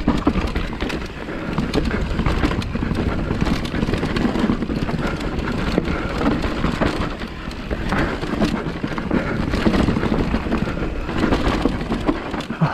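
Specialized Kenevo e-mountain bike ridden down a forest singletrack: a continuous rumble of tyres over dirt and roots, with a dense clatter of knocks and rattles from the bike.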